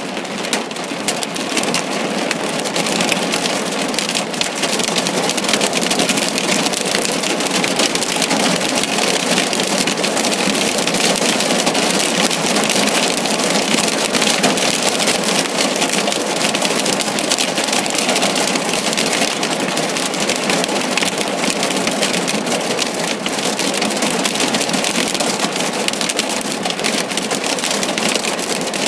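Thunderstorm downpour mixed with small pea-sized hail pelting down: a dense, steady hiss made up of many fine ticks of drops and hailstones striking, growing a little louder a couple of seconds in.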